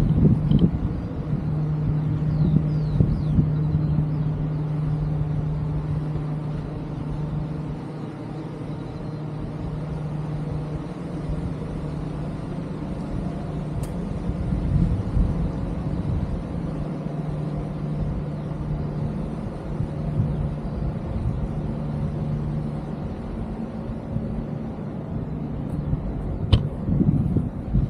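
A steady engine drone, with a low rumble beneath it.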